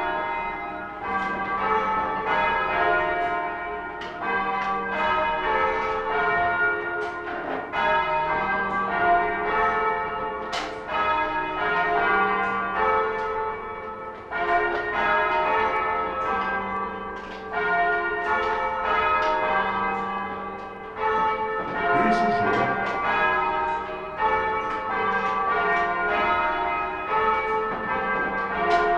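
Four church tower bells, rung full-circle by rope, ringing plain hunt on four: the bells strike one after another in a steady rhythm, their order changing each row through a whole plain course and coming back into rounds near the end.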